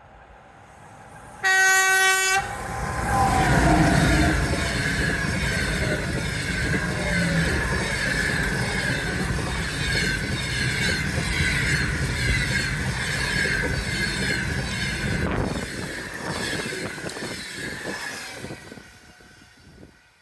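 An EP2K electric locomotive gives a short horn blast about a second and a half in. Then the passenger train passes close by with a loud rumble and wheel clatter, which thins out after about fifteen seconds and fades away near the end.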